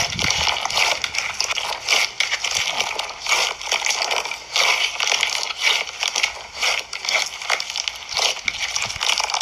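Slime being squeezed and pressed by hand, giving dense crackling and crunching sounds that come in repeated surges about once a second.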